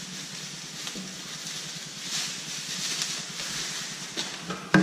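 Plastic wrapping rustling and crinkling as it is pulled off a gift item by hand, with a short knock near the end.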